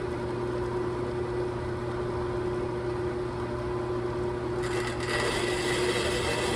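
Horizontal metal-cutting band saw running steadily, its motor humming as the blade feeds slowly down through a metal tube. About five seconds in, the cutting sound turns brighter and a little louder.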